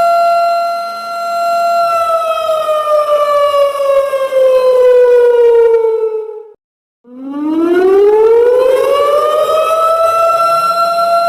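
Loud siren sound effect: a steady tone held for a couple of seconds, then falling slowly in pitch, cutting out for about half a second past the middle, and rising slowly back up to hold the same steady tone.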